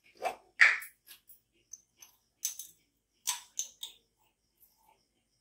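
A string of short kitchenware clinks and taps, a spoon and containers knocking, as salt is added to a mixer-grinder jar. The loudest comes under a second in.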